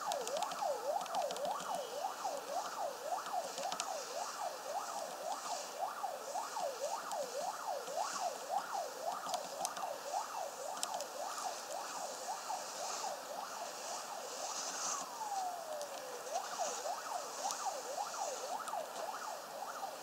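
Emergency vehicle siren in a fast rising-and-falling yelp, about two to three cycles a second, with one slower downward sweep late on before the yelp resumes.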